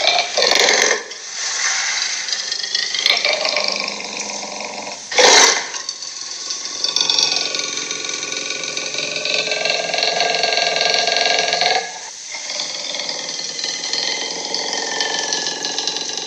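Cartoon monster sound effect: drawn-out, guttural, belch-like growling and moaning that shifts in pitch, with one sharp loud outburst about five seconds in and a brief break about twelve seconds in.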